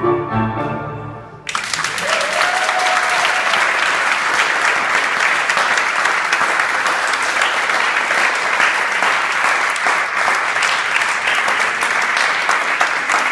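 Audience applause. It breaks out suddenly about a second and a half in as a milonga played by a tango orchestra ends on its last notes, then keeps going steadily.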